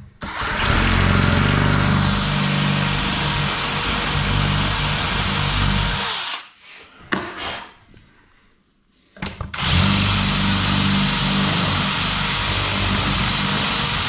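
Power drill boring out the keyhole slot of a cabinet's metal hanging bracket, clearing the wood behind it so the wall hook will fit. The drill runs steadily for about six seconds, stops for about three, then runs again.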